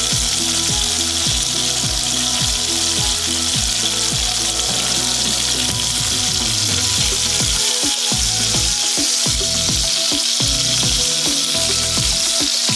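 Chicken pieces frying in hot oil in a pan, being browned, with a steady sizzle. Background music with a steady beat plays underneath.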